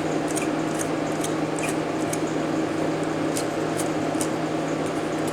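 Steady background hum of a fan or ventilation unit with a low drone, with several light clicks and ticks of small parts being handled on the bench.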